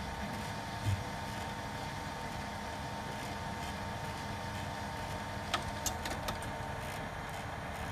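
HP Color LaserJet Pro M277fw colour laser printer running as it processes a print job: a steady mechanical hum with a thin whine, a low thump about a second in, and a few sharp clicks around six seconds in.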